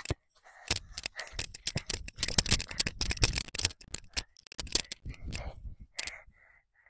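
Dense crackling and rustling close to the microphone, fast irregular clicks that stop about six seconds in.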